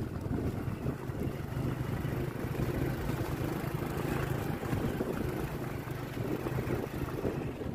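Small motorcycle engine running steadily while riding, a low even drone under the rush of travel.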